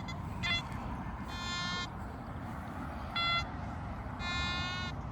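Metal detector sounding electronic target tones over a buried target that the detectorist takes for a coin: a short beep, a longer buzzy tone about a second and a half in, a short higher beep, and another longer buzzy tone near the end.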